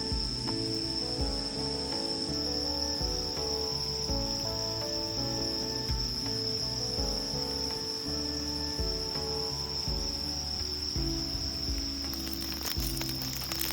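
A steady high trill of crickets runs under background music, which has a melody and a regular low beat. Faint crackling comes in near the end.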